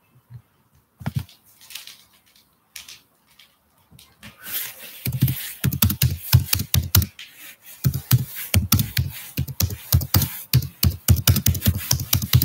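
Handling noise: a few scattered knocks, then from about four seconds in a fast, irregular run of sharp clicks and dull thumps, as of something rubbing and tapping against a covered microphone.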